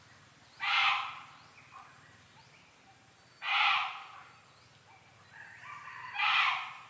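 Three loud animal calls, each about half a second long, spaced roughly three seconds apart.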